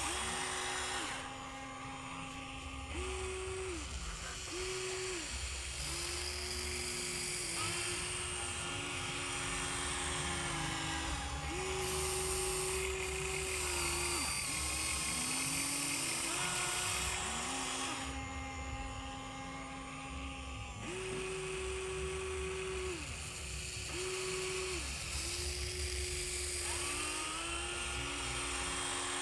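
Huina 1594 RC excavator's motors whining as it works. The whine switches between two pitches and starts and stops every second or two as different movements run, over a high gear hiss.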